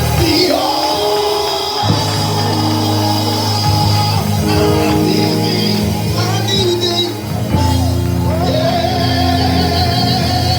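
A church band playing loud, up-tempo praise music: held keyboard chords over drums, with a voice singing or shouting over it at times.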